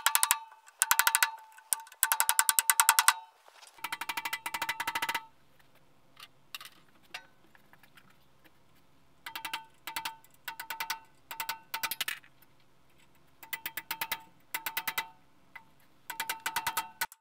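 Ratchet wrench clicking in bursts of rapid metallic clicks with a ringing note as a bolt on the generator's alternator housing is worked. There are long runs in the first five seconds, a pause, then short bursts about every two-thirds of a second, the back-and-forth swing of the handle.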